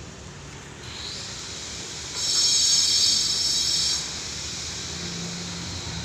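Nice Run HS1200 automatic sliding-gate motor running with the gate rolling on its track: a steady mechanical hiss and low hum, with a loud high-pitched metallic squeal for about two seconds in the middle.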